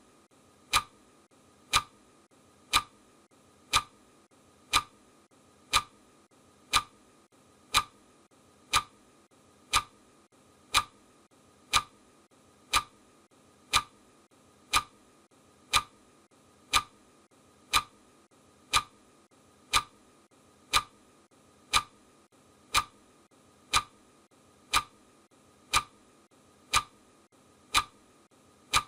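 Clock ticking one tick a second, each tick a short sharp click, marking off the seconds of a countdown timer.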